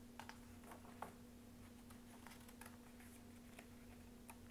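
Near silence: room tone with a faint steady hum and a few soft clicks.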